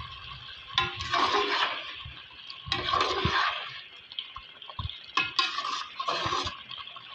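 A slotted metal spoon stirring a simmering mutton and potato curry in an aluminium pot. Three swishing, sloshing strokes through the thick liquid, about two seconds apart, over a steady hiss.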